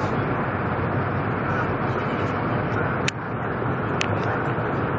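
Steady rushing cabin noise of a bullet train running at speed, heard from inside the carriage. A sharp click comes about three seconds in, and a fainter one a second later.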